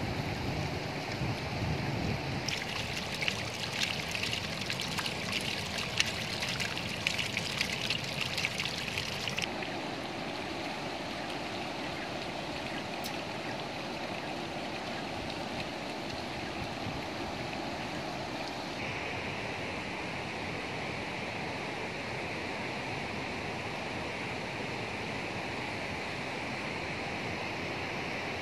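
Steady rushing of a rocky mountain stream cascading over boulders. A higher hiss comes in and cuts off sharply twice, for several seconds each time.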